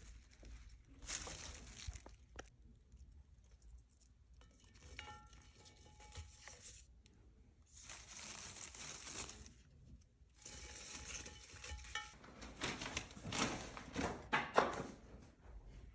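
Rustling and crinkling in irregular bouts as rose stems and leaves are handled and set into a glass vase, loudest near the end.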